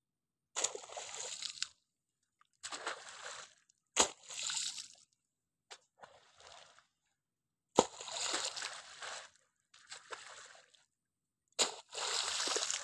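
Spade digging in wet mud: a run of wet, sloshing bursts each about a second long as spadefuls of mud are cut, lifted and dumped, three of them starting with a sharp strike of the blade.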